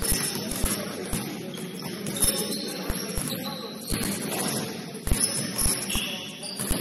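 Basketball game on an indoor court: irregular low thumps of the ball bouncing and players' feet on the floor, with short high squeaks of sneakers.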